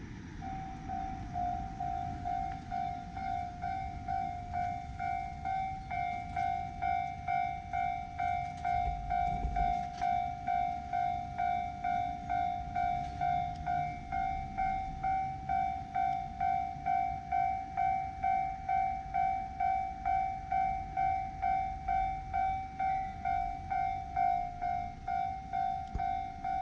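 Japanese railway level-crossing alarm ringing, one pitched electronic ding about twice a second, starting about half a second in and keeping on steadily: the warning that a train is coming and the crossing is closed.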